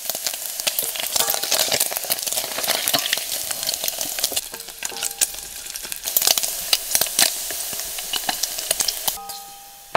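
Diced pork fat sizzling and crackling as it renders into cracklings in a small metal saucepan, stirred with a wooden spoon. The sizzle fades near the end.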